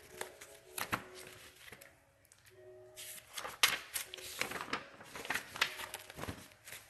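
Sheets of printer paper rustling and crinkling in a string of quick crackles as a page of the printed story is turned, busiest and loudest a little past halfway.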